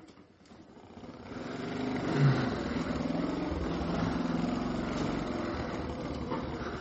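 Suzuki FB step-through motorcycle's small two-stroke engine catching about a second in, swelling briefly, then running steadily at low speed.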